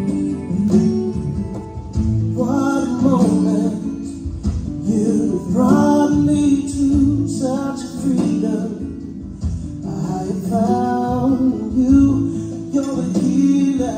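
A Christian worship song playing: a singer's voice in phrases every few seconds over a guitar-led accompaniment.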